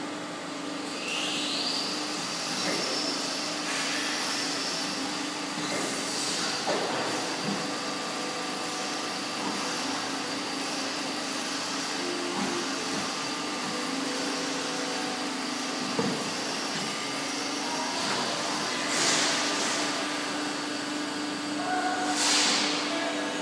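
COMAC CA-2006 plate bending roll running with no plate in it: its drive turns the steel rolls with a steady hum, and a whine rises about a second in and then holds. A few short hissing bursts come through, one near the middle and two near the end.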